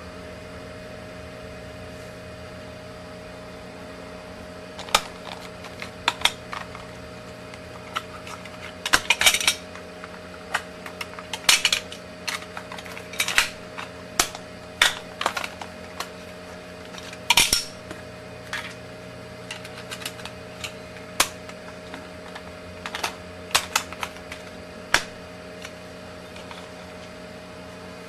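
Irregular sharp clicks and short clatters of small hard objects being handled, starting about five seconds in and stopping a few seconds before the end, over a steady hum.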